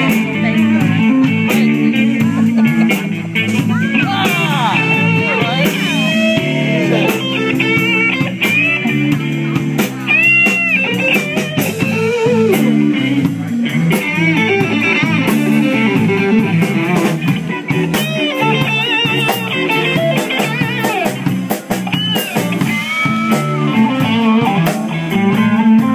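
Live band playing: electric guitar with gliding, bent notes over bass guitar and a drum kit.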